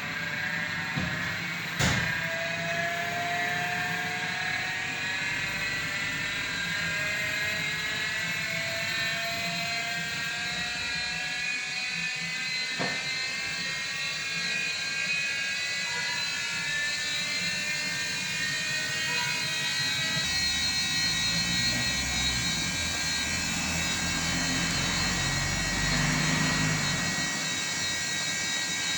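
Samsung WW90K5410UX front-loading washing machine speeding up into a spin, its inverter motor giving a whine that climbs slowly in pitch, then holding a steady high-speed spin with a low rumble from about two-thirds of the way through. A sharp click about two seconds in and another fainter one near the middle.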